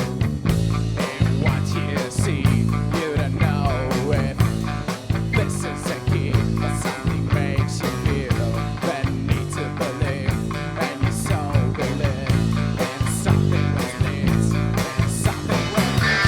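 Instrumental rock music: guitar over bass with a steady beat.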